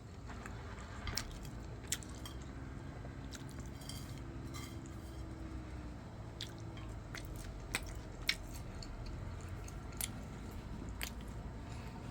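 A person chewing food, with scattered light clicks of tableware, over a steady low background noise.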